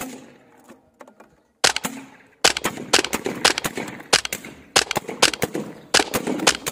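Snowpeak M40 semi-automatic PCP bullpup air rifle firing: a shot at the start, another about a second and a half later, then a rapid string of shots, several a second, through the rest.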